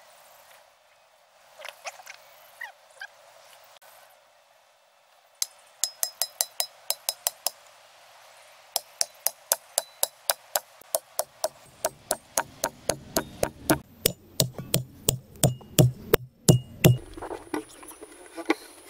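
Rapid series of sharp knocks with a metallic ring, about five a second, in a short run and then a longer run that grows louder and heavier near its end.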